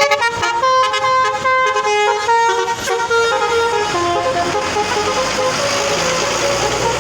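Bus telolet horn, the multi-tone musical horn of Indonesian buses, playing a quick up-and-down melody of short notes. About four seconds in it gives way to a loud rushing vehicle noise, with the horn notes fainter.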